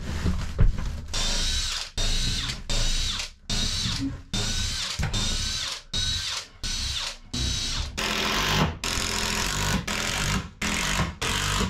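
Cordless drill/driver running in a quick series of short bursts, about a dozen, each with a whine that rises as the motor spins up, as a row of wood screws is driven through the wooden cabin side into the sill.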